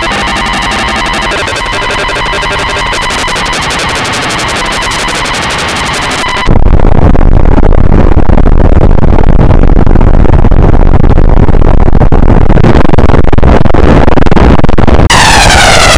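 Heavily distorted, clipped electronic audio: a harsh buzzing noise over steady tones, then about six and a half seconds in a sudden jump to a much louder, bass-heavy wall of distortion. Near the end it switches to sweeping, warbling tones.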